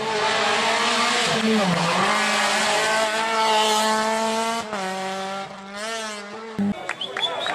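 Renault Clio rally car's engine at high revs, flat out on a tarmac stage. The note dips briefly about a second and a half in, lifts again near the five-second mark, then fades and wavers as the car goes away.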